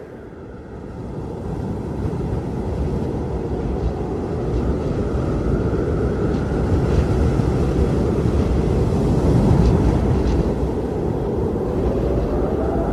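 Strong wind blowing in gusts: a deep, rushing noise that swells over the first couple of seconds and then surges and eases. A faint whistling tone rises near the end.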